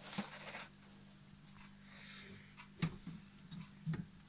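Hen's eggs being set by hand into a plastic incubator egg-turning tray: a brief rustle at the start, then light knocks as the eggs touch the plastic, about three and four seconds in, over the steady low hum of the running incubator.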